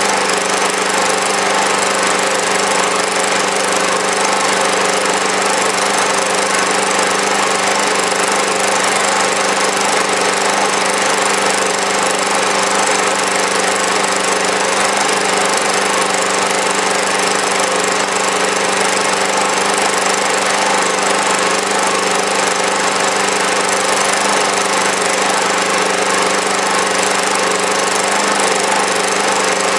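Small petrol engine running steadily at a set speed in standard trim, on fuel alone without HHO, while driving a generator load of about 350 watts. The note holds even, with no change in speed.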